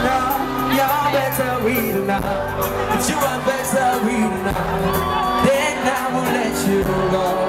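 Live pop music at a concert: a singer over a band or backing track with a steady beat, played through a loud sound system, with a crowd shouting and whooping.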